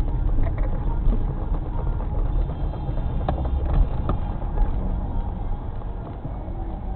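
Low rumble of a car's engine and road noise heard from inside the cabin while creeping in slow traffic, with a couple of short clicks a little after three seconds and near four seconds.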